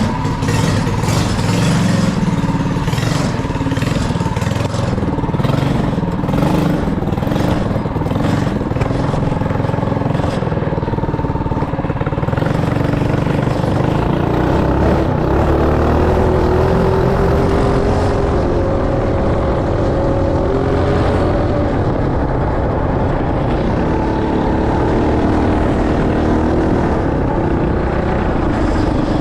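Single-cylinder 212cc go-kart engine running under way, its pitch rising and falling as the throttle is worked, with a rattling clatter over it in the first half.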